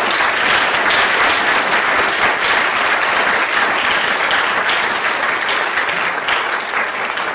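Audience applauding: a loud, dense round of clapping from many hands that carries on steadily and eases off slightly near the end.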